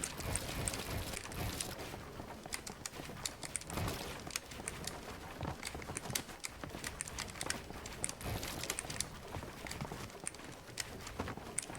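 Irregular light clicks and taps as hands handle a webcam and its packaging, over a low rustle.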